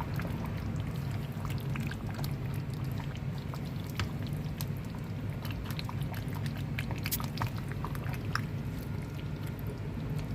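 Pot of banga (palm-nut) soup simmering while being stirred gently, with many scattered small pops and clicks over a steady low hum.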